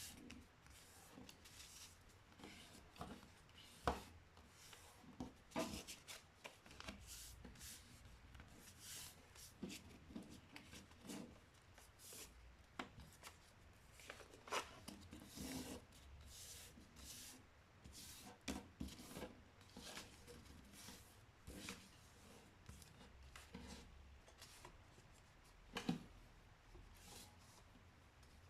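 A sheet of printer paper being handled and folded by hand: soft rustling and rubbing with short, crisp crackles as folds are creased down, a few sharper ones near 4 seconds in and near the end.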